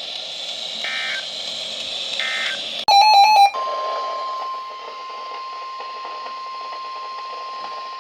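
NOAA Weather Radio's end-of-message signal: short bursts of SAME digital data chirps, a bit over a second apart. About three seconds in comes a brief, loud multi-tone beep. Then the steady single-pitch weather radio attention tone begins and holds, the signal that a new warning is about to be read.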